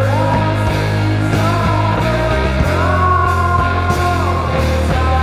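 Recorded heavy psychedelic rock: a steady low bass and regular drum hits under a pitched lead line that glides up and holds.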